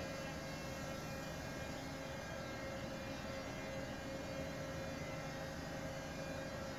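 Heavy fuel oil purifier, a centrifugal separator, running steadily among ship engine-room machinery: an even hum with one clear steady tone above it.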